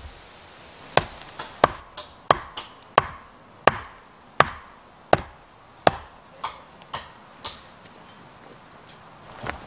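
Axe chopping wood: about eleven sharp strikes, one every two-thirds of a second or so, growing weaker toward the end.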